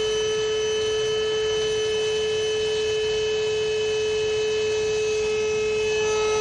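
Wet/dry vacuum motor running with a steady, even whine while it draws on the air-conditioner's condensate drain line to clear it.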